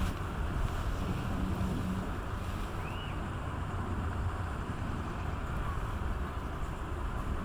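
Wind buffeting the microphone outdoors, a steady low rumble with a hiss over it. A single short high note sounds briefly about three seconds in.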